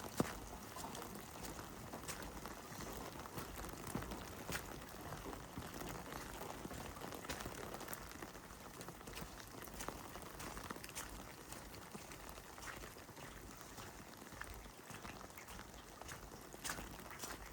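Rain falling steadily, with many scattered sharp clicks of drops striking hard surfaces.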